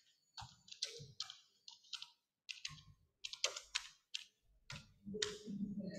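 Computer keyboard typing and clicking in quick, irregular clusters, fairly faint, with a low murmur about five seconds in.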